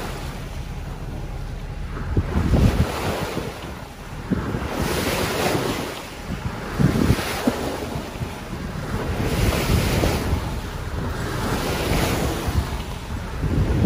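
Sea water rushing and splashing along the bow of a sailboat under way in a choppy sea, swelling in surges every two to three seconds as the bow meets the waves and throws spray. Wind buffets the microphone throughout.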